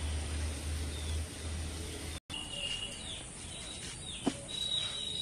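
Small birds chirping in short, high calls, with one sharp click about four seconds in. Before that, for about two seconds, a steady low hum lies over the faint hiss of batter frying in hot oil, and it cuts off abruptly.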